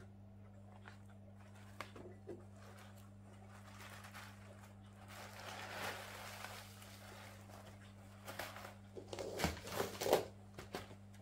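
Plastic parts of an EHEIM Professionel 5e 350 canister filter being handled: a stretch of rustling about halfway through, then a few sharp plastic clacks and knocks near the end, over a steady low hum.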